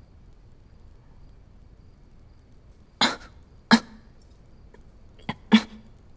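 A woman coughing: two sharp coughs about three seconds in, then a short cough and a stronger one about two seconds later.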